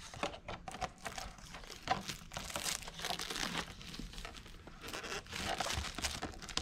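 Clear protective plastic film being peeled off a painted RC truck body shell, crinkling and crackling irregularly.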